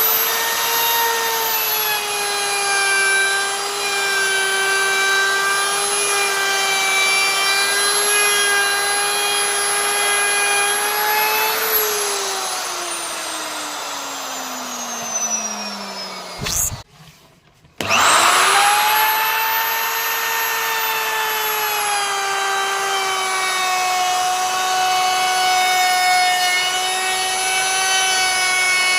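Electric wood router motor running at speed with a steady high-pitched whine as it works wood. About twelve seconds in it winds down with falling pitch, goes briefly near silent, then spins back up with a rising whine and runs steadily again.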